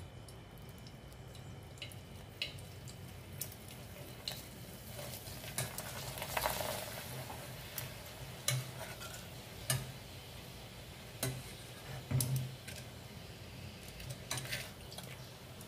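Hot oil sizzling in a stainless-steel pot as thin crackers deep-fry and puff up, with metal tongs clicking against the pot now and then. The sizzle swells loudest about six seconds in. A steady low hum runs underneath.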